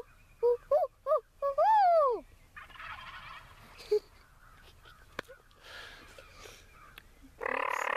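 Wild turkey calling: a quick series of short yelping notes, about three a second, ending in one longer note that falls in pitch about two seconds in. Fainter noises follow, with a short, louder burst of noise near the end.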